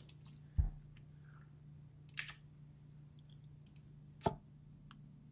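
A few scattered computer mouse clicks and keyboard taps over a faint steady low hum: a low thump about half a second in, smaller clicks through the middle, and the loudest sharp click about four seconds in.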